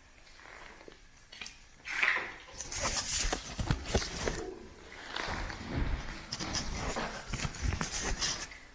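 Irregular crunching, rustling and knocking, starting about two seconds in and going on to the end over a steady hiss.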